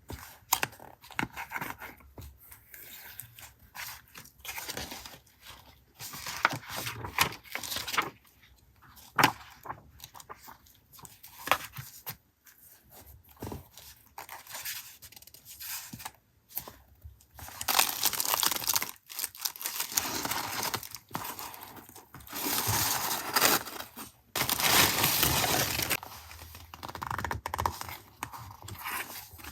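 Paper being handled and torn: scattered light taps and rustles, then several long tearing or rustling strokes of a second or two each in the second half.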